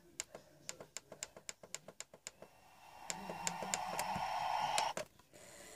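Quick button clicks, about seven a second for some two seconds, as a DVD is skipped ahead to track 12. Then a steady whirring hiss swells in, holds for about two seconds and cuts off suddenly.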